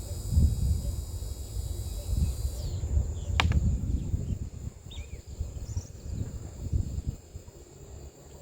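Uneven low rumbling of handling noise on the camera microphone, with a single sharp click about three and a half seconds in. Behind it, steady high-pitched chirring of crickets or other insects.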